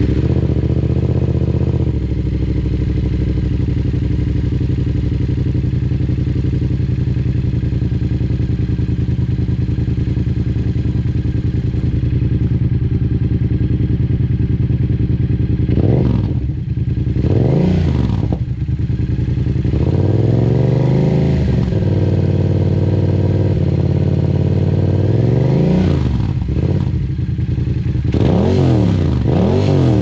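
Yamaha MT-07's 689 cc parallel-twin engine running through a Dominator HP3 exhaust with the dB killer removed. It idles steadily for about the first half, then is revved in short throttle blips, about five of them, one held a little longer.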